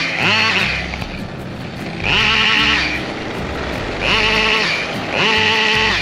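Husqvarna 572XP two-stroke chainsaw revving up to full throttle in four short bursts, falling back to a lower running note between them, the high note warbling at each burst.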